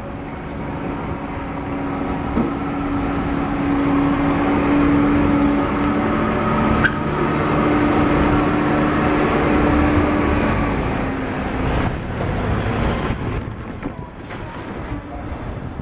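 Forklift engine running under load as it hauls a railcar along the factory tracks: a steady drone that builds over the first few seconds, holds until about eleven seconds in, then fades away.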